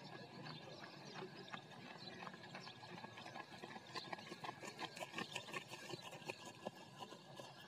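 Running footsteps of several people on packed dirt: quick, faint slaps that grow louder and come thick and fast as the runners pass close, about four to six seconds in.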